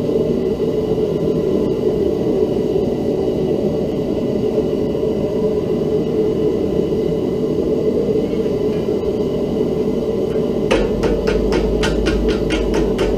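Propane forge burner running with a steady roar. Near the end, rapid, evenly spaced hammer strikes on hot steel begin, about four a second.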